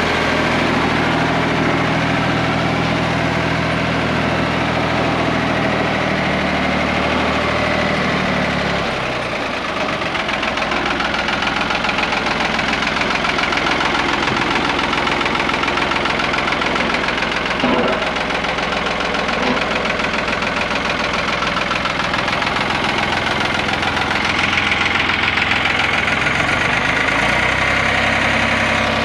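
Ford 515 industrial tractor's engine running as the tractor is driven. It is steady at first, turns rougher and pulsing from about nine seconds in, and settles back to a steady run near the end, with a single short knock about eighteen seconds in.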